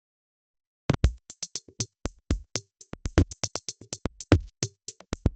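An eight-beat drum pattern: steady rapid hits with deeper low drum strikes among them, starting about a second in after silence.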